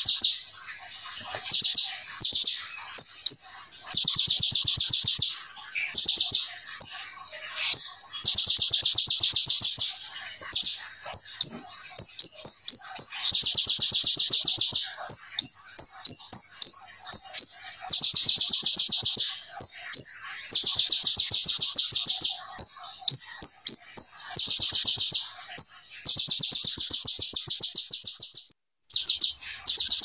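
Kolibri ninja (konin) sunbird singing in full 'nembak' style: loud, very fast high trills of one to two seconds, repeated every few seconds, with quick chirps between them. The song is filled with the 'brem' call of the ciblek (bar-winged prinia).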